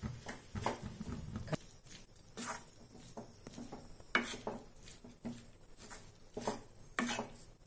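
A wooden spatula stirring and scraping chopped onions and tomatoes around a kadai, with irregular soft scrapes and knocks about once a second.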